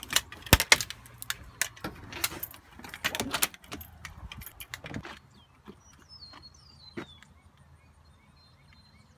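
A ring of keys jangling and clicking against a house door's deadbolt and knob lock as a key is worked in it, with many sharp rattles for about five seconds. Then it goes quiet apart from faint bird chirps.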